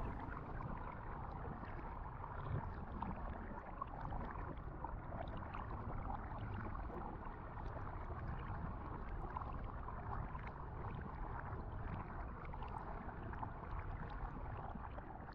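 A steady low rumbling noise with faint scattered ticks.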